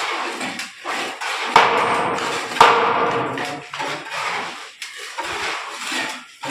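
Hammer blows while a wooden door frame is being fitted: two loud strikes about a second apart, each with a short ring, among lighter knocks.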